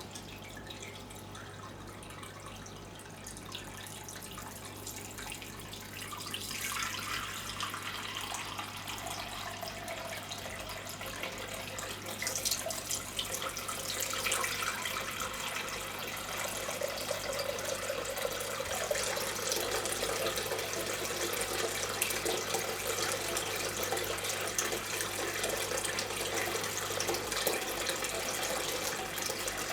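Water trickling and splashing down a small terracotta-and-stone tabletop waterfall fountain, the flow building up over the first dozen seconds or so and then running steadily. A steady low hum lies underneath.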